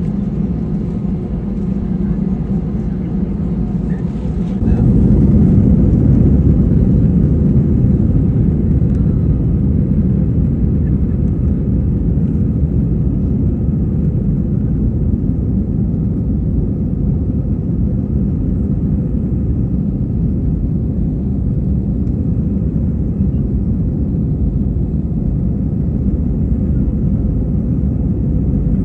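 Airbus A320 heard from inside the passenger cabin: a steady low rumble of engine and airframe noise. About four and a half seconds in it steps up to a louder, rougher rumble and holds there.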